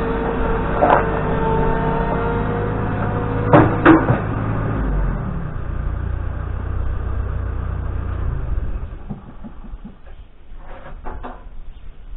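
An engine running steadily with a whine, with two sharp metal knocks about four seconds in; the engine stops about nine seconds in, followed by a few lighter knocks.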